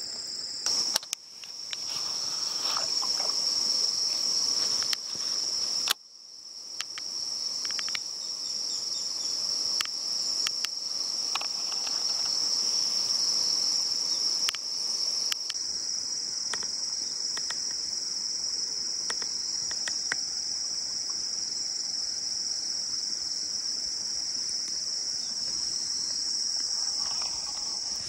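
A steady, high-pitched drone from a chorus of insects, with scattered short clicks and rustles over it. It dips out briefly twice in the first few seconds.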